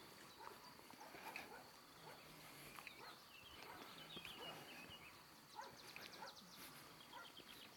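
Near silence: faint outdoor ambience with scattered faint chirps and ticks, and a quick run of high ticks about six seconds in.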